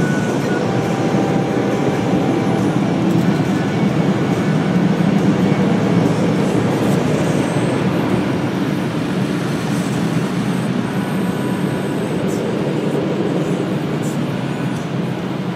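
Automatic car wash air dryers blowing, heard from inside the car: a loud, steady rush that eases a little toward the end as the car rolls out of the bay.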